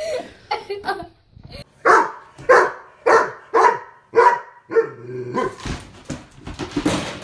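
Dog barking repeatedly: about six sharp barks, roughly two a second, starting about two seconds in.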